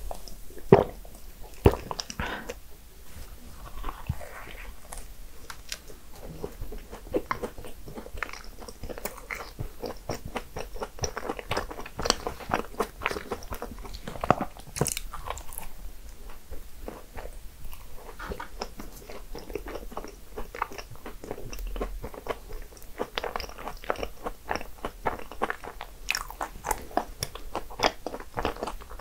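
A person biting into and chewing desserts, with many short crunches scattered through the eating.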